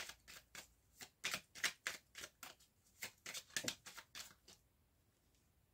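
A deck of oracle cards being shuffled by hand: a quick run of short card-against-card strokes, about four a second, that stops about four and a half seconds in.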